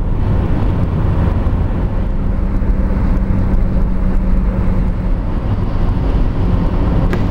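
Steady rumble of road and engine noise heard from inside a car cruising at highway speed, with a low hum that holds for a few seconds in the middle.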